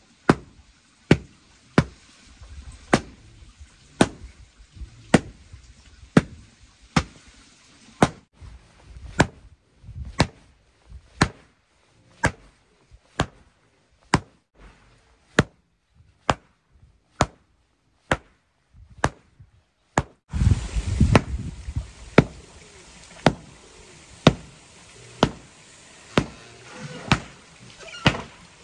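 Hand chopping of wood: sharp, regular strikes about once a second. A steady background hiss and low rumble come in about two-thirds of the way through.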